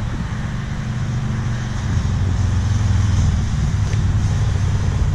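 Low, steady rumble of wheels rolling over skate-park concrete, with a low hum under it, growing louder about two seconds in.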